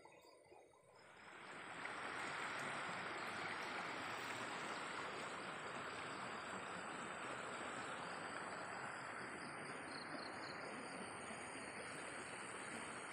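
Steady rush of water flowing in an irrigation canal at a sluice gate, rising about a second in and then holding even.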